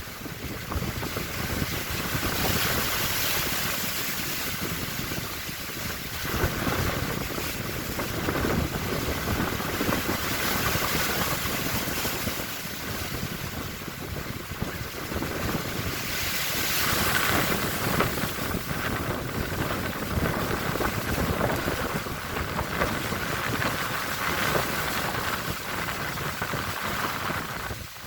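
Strong wind blowing hard over the sea and buffeting the microphone, with waves washing. It swells in gusts every several seconds.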